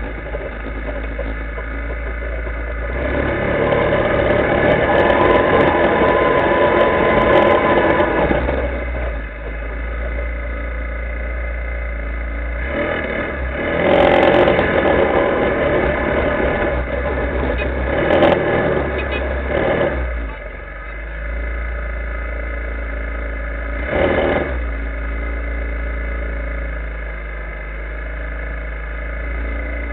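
Linhai ATV engine running as the quad is ridden along a rough trail, swelling louder several times as the throttle opens, over a steady low rumble from the ride.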